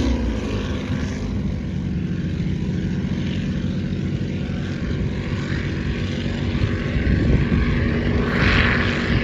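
Motorboat engine running steadily at speed as the boat pulls away, noisy; a hissing rush comes in near the end.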